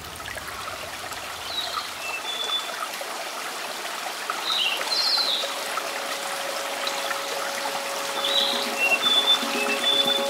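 Running stream water trickling steadily, with short high bird chirps in three brief groups. Music fades in near the end.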